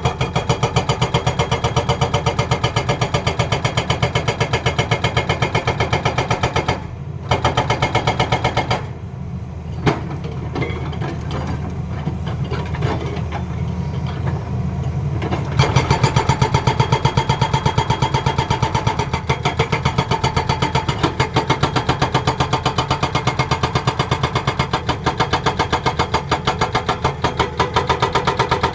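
Hydraulic breaker on a Tata Hitachi excavator hammering in a rapid, even rhythm over the running diesel engine. The hammering breaks off briefly about seven seconds in, then goes quieter and uneven from about nine to fifteen seconds in before resuming at full strength.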